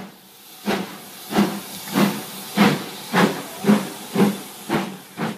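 Steam locomotive exhaust chuffing at about two beats a second, the beats slowly quickening, with a steam hiss between them. The sound cuts in suddenly.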